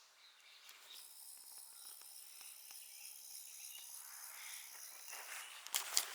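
A faint, steady high-pitched whine of several thin tones over a light hiss, then footsteps starting near the end.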